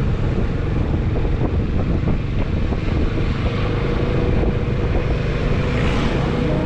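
Motor vehicle running on the move, with road rumble and wind on the microphone. A faint steady tone comes in about halfway, and a hiss swells near the end.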